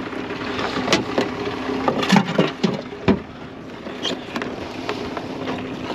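Irregular knocks, clicks and scrapes of mud crabs and gear being handled in a small boat, over a faint steady hum.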